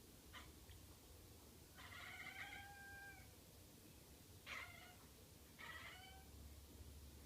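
A cat making odd, faint chirping calls: a few short chirps, one longer drawn-out call about two seconds in, then two more short ones. It is the chatter a cat makes while watching something outside a window that it wants to catch.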